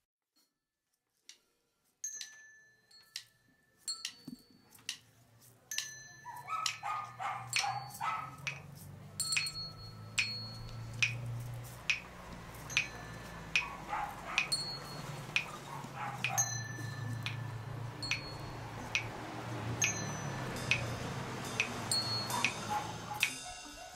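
Street sounds: a dog barking and sharp clicks and knocks over a low steady rumble, starting after about two seconds of silence.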